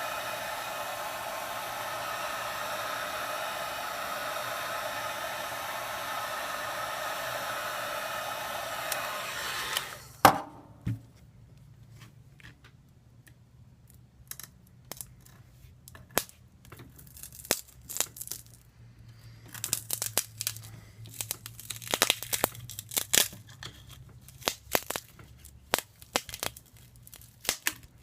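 A hot-air tool blows steadily for about ten seconds, heating the adhesive behind a Galaxy S3's LCD, then cuts off with a sharp click. After that come scattered crackles and snaps of the glued LCD being pried loose and the adhesive tearing.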